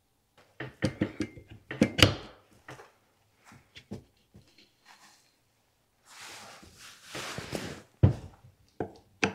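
Metal fork crown being pushed and worked onto the greased stanchion tubes of a Manitou suspension fork: a run of light clicks and knocks, a couple of seconds of scraping rub, then a sharp knock about eight seconds in and another near the end.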